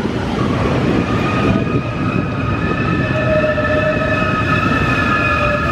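Trenitalia train running past at close range: a loud, steady rolling rumble, with high, steady whining tones coming in after about a second.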